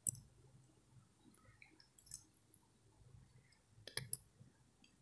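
Faint room tone broken by a few short clicks: one right at the start, a couple of faint ones around two seconds in, and a small cluster about four seconds in.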